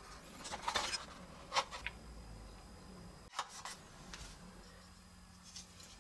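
Hard plastic toy kit parts being handled and pressed together, giving short clicks and clacks: several in the first second and a half, a couple more about three and a half seconds in, and a faint one near the end.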